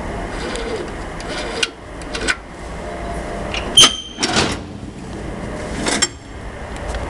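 Mosler steel security container being opened: a couple of light clicks, then a loud, ringing metallic clack from the drawer latch handle a little under four seconds in, followed by the steel drawer rattling out on its runners, with another clack about six seconds in.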